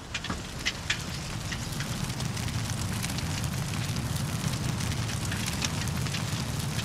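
Fire crackling and burning: a low steady rumble with scattered sharp crackles, the crackles thickest in the first second.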